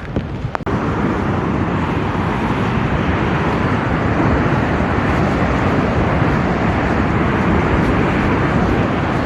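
Strong wind blowing over the microphone, a steady, even rushing roar that sets in abruptly just over half a second in.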